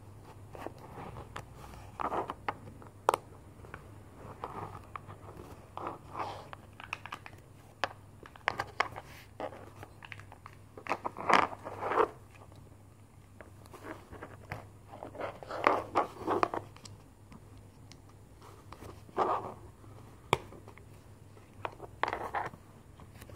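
Small plastic toy pieces being handled and pressed together on a tabletop: scattered clicks, taps and scrapes, with a few louder clusters of rubbing.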